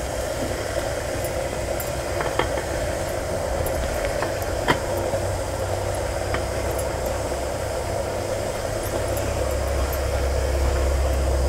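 Steady rumble of water boiling in an aluminium pot over a wood fire. The low rumble grows a little near the end. A few light clicks come as bitter gourd pieces are set on the perforated steamer plate.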